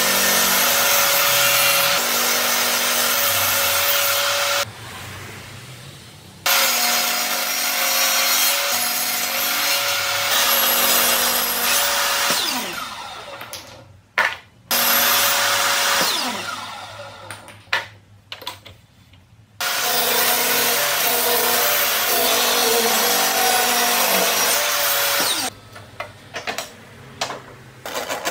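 Bosch table saw running and ripping wooden boards, in several cuts. Between cuts the motor winds down with a falling whine, and near the end there are a few light knocks of wood being handled.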